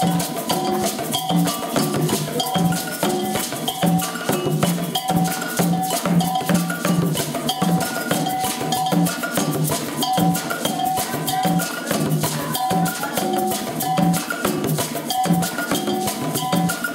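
Afro-Cuban iyesá rhythm played by a percussion ensemble of conga drums, metal bells struck with sticks and shakers, in a steady, unbroken groove. The bell pattern rings out over the low drum strokes, with the shakers' dense ticking underneath.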